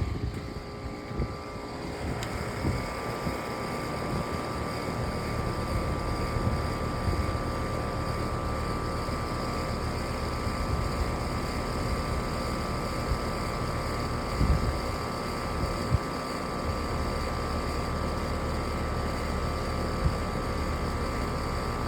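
Outdoor air-conditioner condenser unit running: a steady fan and compressor hum with a faint whine over it. Two brief low thumps come past the middle.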